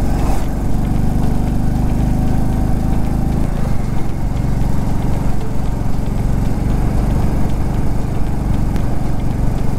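Royal Enfield Classic 350's single-cylinder engine running with a steady low beat; its note changes about three and a half seconds in.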